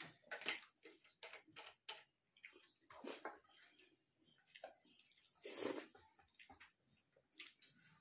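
Two people eating rice by hand: quiet, irregular chewing and lip-smacking clicks, with a few louder mouth noises about three and five and a half seconds in.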